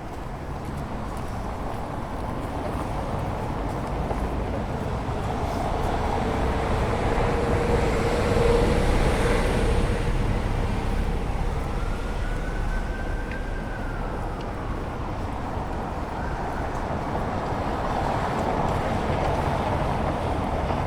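City traffic ambience: a steady rumble of road traffic, with a vehicle passing that is loudest about eight seconds in. A short high whine rises and falls a few seconds later.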